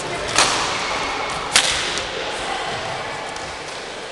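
Badminton racket striking a shuttlecock twice, sharp cracks about a second apart, the second the louder, over the murmur of a large hall.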